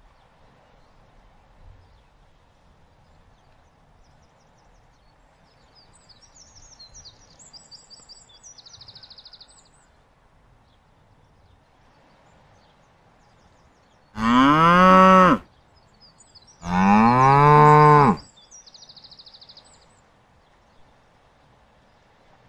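Two loud, long bellows from a recorded Cape buffalo call played back at an exhibit, each about a second and a half, rising then falling in pitch. Faint high bird chirps come before and after them.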